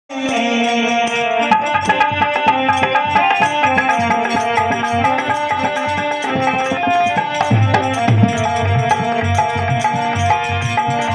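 Instrumental opening of a Rajasthani folk bhajan: a melody of held notes over hand-drum percussion, with a deeper drum beat joining about seven and a half seconds in.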